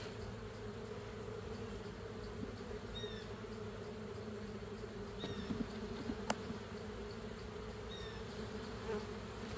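Honeybees buzzing around an opened hive as a brood frame is held up and looked over, a steady hum. A single sharp click about six seconds in.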